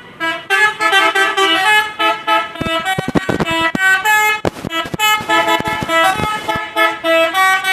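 Bus telolet horn, a set of multi-tone horns playing a quick tune of short notes that step up and down in pitch, over and over.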